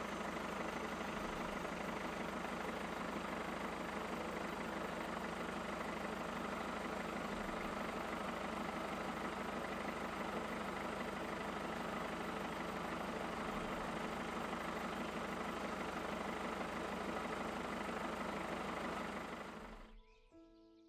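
A steady, unchanging mechanical noise, like an engine running, that cuts off near the end.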